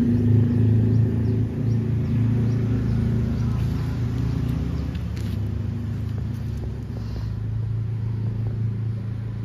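An engine running steadily with a low rumble, slowly growing quieter.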